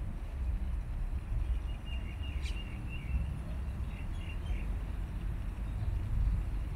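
Steady low rumble of wind on the microphone, with a small bird chirping a few times between about two and four and a half seconds in.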